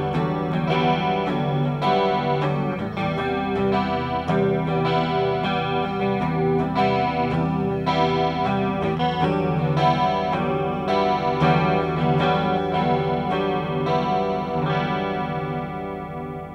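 Electric guitar played through a Small Clone-style chorus pedal, the Stomptown Penny Royal: a run of picked notes with a wavering chorus shimmer, fading out near the end.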